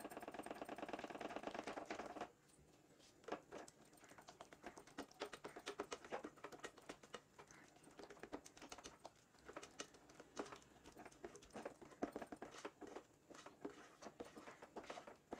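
Faint clicks and taps of a nylon spatula stirring thick, sticky cornflour halwa in a nonstick pot. They come fast and close together for the first two seconds, then scattered and irregular.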